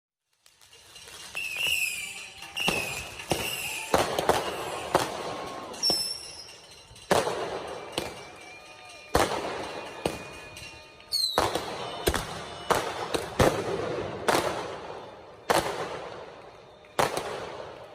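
Fireworks going off: a string of more than a dozen sharp bangs at irregular intervals, roughly one a second, each with a fading tail. Shrill whistling tones sound near the start and again about six and eleven seconds in.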